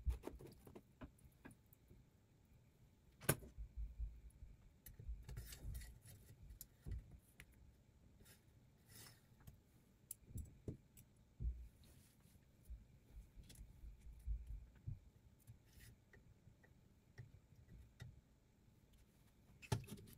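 Scattered light metal clicks, taps and dull bumps from handling a Sytools Beast clamp-type knife-sharpening jig as its parts are set up, with a sharper knock about three seconds in and another cluster of clicks near the end.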